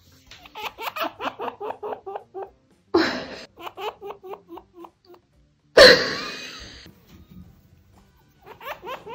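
Chinchilla grunting: runs of short, quick grunts at about five a second, in three bouts with pauses. A harsher burst comes about three seconds in and a louder one about six seconds in.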